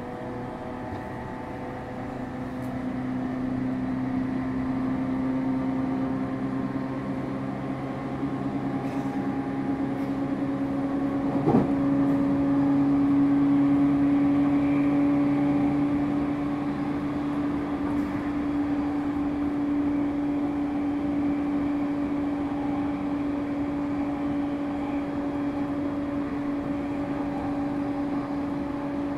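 JR E231 series electric train running between stations, with a steady traction-motor whine that creeps slowly up in pitch. A single sharp knock comes about eleven seconds in.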